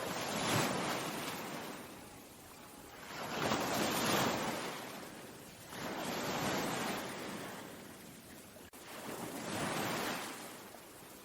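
Ocean waves breaking on the shore, four surges of surf in turn, each swelling to a rush and fading away over a few seconds.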